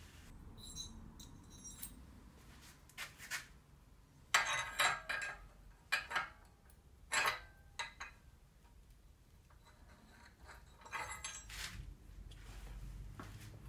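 Chrome bicycle headset parts clinking and clicking against the head tube as they are fitted by hand: scattered metal clinks in clusters, the loudest about four to five seconds in and again about seven seconds in.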